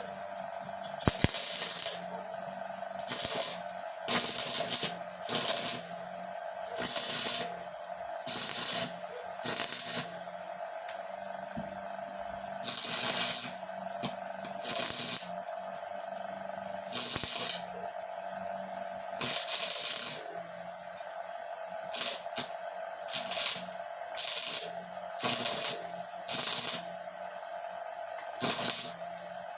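Homemade arc welder built from a microwave oven transformer, striking and holding the arc in about twenty short crackling, hissing bursts, each up to about a second long, over a steady hum.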